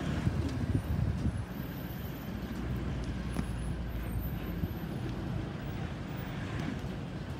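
Low, steady rumble of a pair of diesel-electric locomotives, led by an SSR S-class, moving away over the junction, a little louder in the first second or so.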